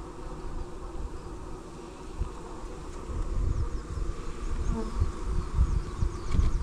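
Honey bees buzzing in a steady hum around an open hive. From about halfway in, low rumbling bumps on the microphone come over the top of it.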